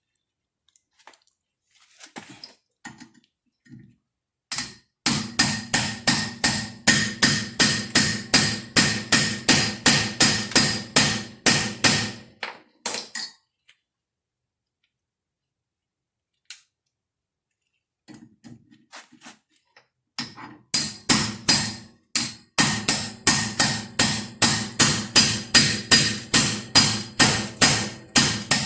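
A hammer repeatedly strikes a half-inch manual reversible impact driver set in a rotor retaining screw on a Honda/Acura rear brake rotor, to break the screw loose. The blows come at about three a second, each with a sharp metallic ring, in two long runs of several seconds with a pause between.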